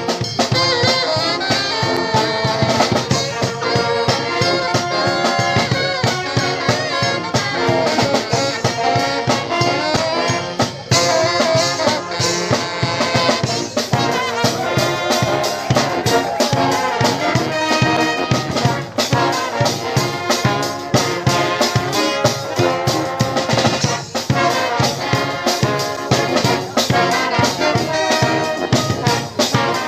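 Brass band playing live: trumpets and trombones over a steady, driving drum beat.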